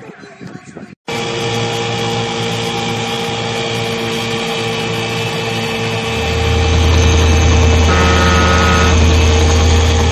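A small motorboat's engine running steadily as the boat travels over the water. It cuts in about a second in and grows louder, with a heavier low rumble, from about halfway.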